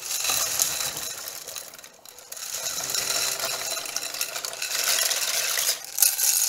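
Dry spiral pasta poured from a glass bowl into a pot of boiling water: a dense patter of many small pieces splashing into the water and rattling on the bowl, with a brief let-up about two seconds in.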